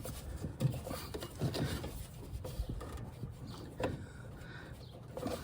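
Light handling noise: scattered soft knocks, clicks and rubbing.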